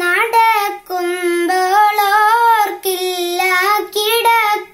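A young girl singing the opening line of a Malayalam song unaccompanied, holding long notes with short breaks between phrases.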